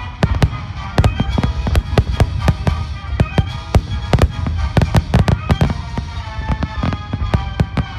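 Aerial firework shells bursting in a dense barrage, several bangs a second, with music playing underneath.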